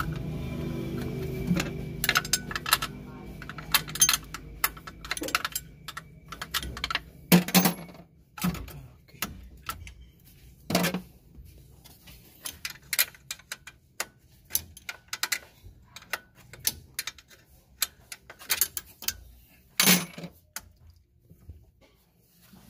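Irregular metallic clinks and knocks of hand tools working on bolts while the fan clutch and cooling-fan assembly are removed from the engine bay. A low hum fades out in the first few seconds.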